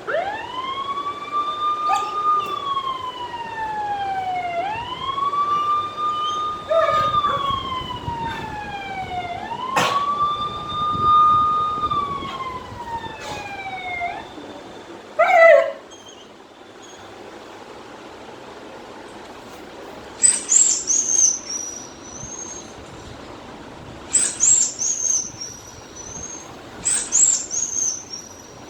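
Wailing siren: three cycles, each rising quickly to a held high note and then sliding slowly down, about five seconds apiece. At about fifteen seconds a short, loud falling cry cuts in, and later there are three brief bursts of very high, falling squeaks.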